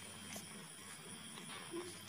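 Faint sounds of newborn kittens nursing at their mother: soft rustling and a few small suckling clicks, with one brief faint note near the end.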